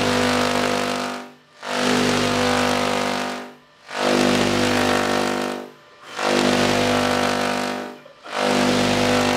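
Handheld Tesla coil ('Tesla gun') firing spark streamers into the air: a loud pitched electric buzz in five bursts of about two seconds each, broken by short pauses.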